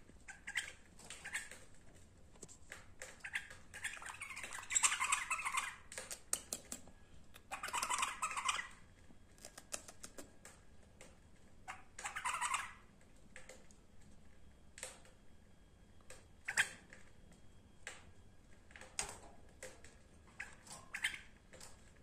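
Caged white-eared bulbul calling: scattered short chirps and three longer harsh calls, with light clicks and taps around the cage.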